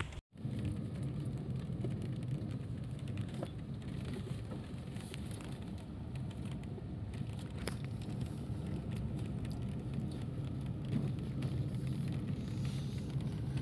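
Steady low road and engine rumble heard inside the cabin of a moving car, with a few faint clicks.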